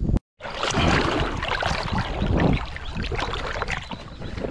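Loud, uneven rushing of water and wind noise on a microphone held just above the surface of a muddy, flowing river, after a brief dropout to silence at the start.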